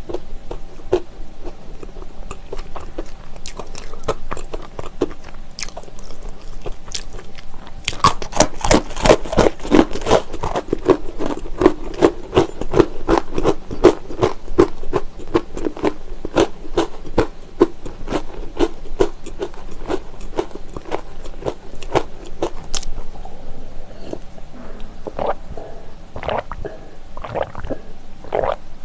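Close-miked crunching and chewing of hard braided honey wheat pretzel twists. There are rapid crunches, densest and loudest from about eight seconds in, and they thin out to occasional soft chews in the last few seconds.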